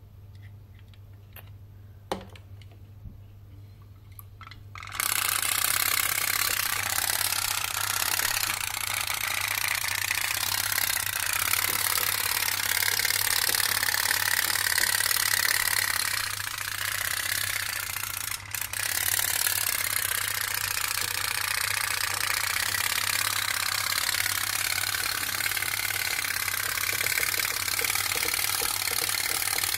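Home-made tin pop-pop boat, heated by a candle flame in its boiler, starting to pop about five seconds in and then keeping up a loud, continuous putt-putt rattle as it pushes ripples through the water. The boiler has reached working heat. A steady low hum lies underneath.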